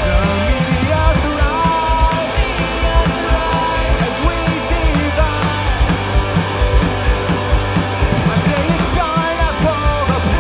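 Punk rock band playing live: electric guitars, bass guitar and drums, with a man singing over them.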